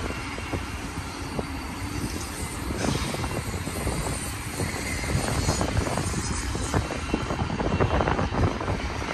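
BNSF double-stack intermodal container train rolling by on the far main track: a steady rumble, with wheel and car clatter coming in more densely about halfway through.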